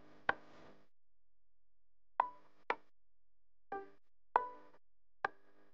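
Sparse background music of single struck notes, about six of them, each ringing briefly with silence between.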